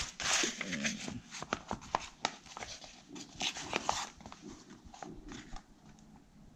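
Paper pages of a printed manual rustling and crackling as they are turned and pressed flat by hand, a string of short crackles and taps that thins out near the end.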